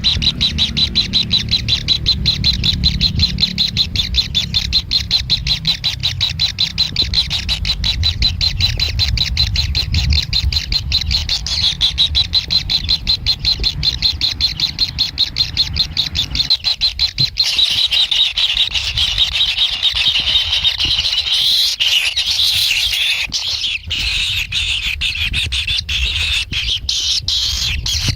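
Kingfisher chicks begging: a fast, even run of short high calls, about four or five a second, over a low rumble. After about seventeen seconds the rumble drops away and the calling becomes a denser, harsher chorus.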